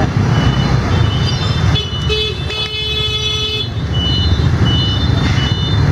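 Motorbike engines running in a crowded alley, with a horn sounding for about a second and a half midway. Short high beeps repeat throughout.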